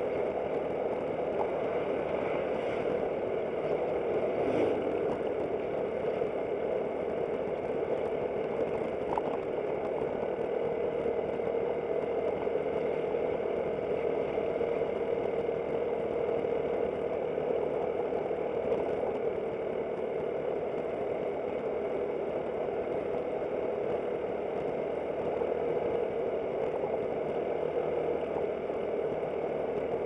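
Aprilia SportCity scooter's engine running at a steady cruise, with road and wind noise, picked up by a dashcam mounted on the bike. The drone holds even throughout, with a few faint ticks.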